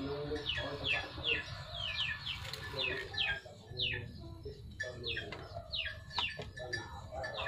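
Chickens: a steady run of short, high, falling peeps, two or three a second, mixed with lower clucks.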